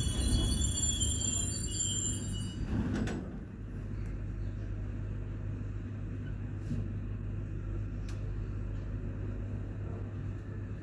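Steady low hum and rumble of a train. High-pitched steady tones sound over it for the first three seconds and stop abruptly.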